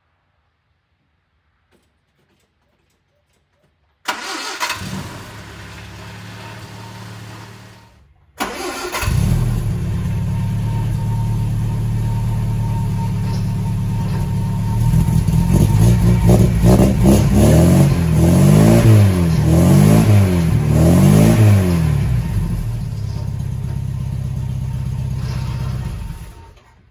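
Sunbeam Alpine four-cylinder engine cold-starting: it comes in about four seconds in, and after a brief break runs with its exhaust close by. It is revved up and down several times in the middle, then settles to a steady idle.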